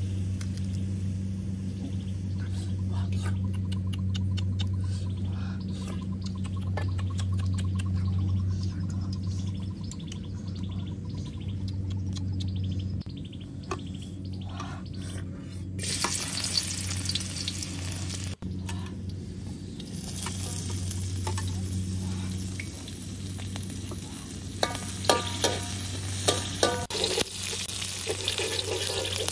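Hot oil in a steel wok starting to sizzle about halfway through as chopped chillies and garlic go in, the frying continuing over a steady low hum. Near the end a metal spatula stirs and scrapes against the wok, giving sharp clinks with a brief metallic ring.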